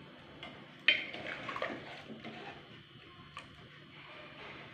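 Metal spoon clinking and scraping against a pressure cooker as chickpea curry is stirred: one sharp clink about a second in, then a few lighter ones.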